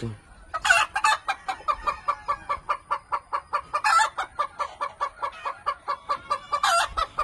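Gamefowl chickens clucking: a fast, even run of short clucks at about five a second, broken by three louder calls about a second in, midway and near the end.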